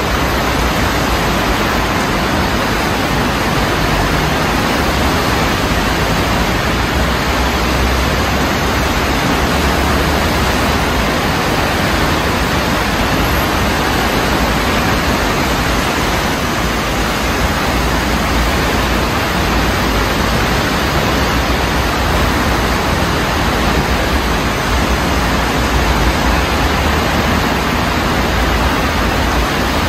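Swollen urban stream in flood after heavy rain: fast brown floodwater rushing through the channel in a steady, loud rush, with a low rumble that swells and fades underneath.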